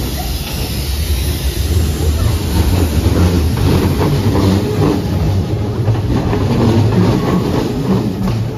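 Hanshin Railway 8000 series electric train pulling out of the station, a low rumble that grows louder as it picks up speed, with the wheels clacking over rail joints and points from about midway.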